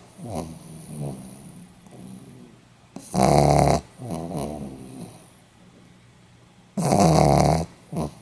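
Pomeranian snoring in its sleep: two loud snores, about four seconds apart, each followed by softer breaths that fade away.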